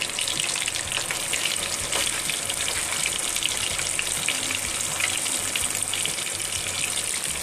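Spice-marinated fish pieces deep-frying in hot oil in a frying pan, freshly added over medium heat: a steady sizzle thick with fine crackling pops.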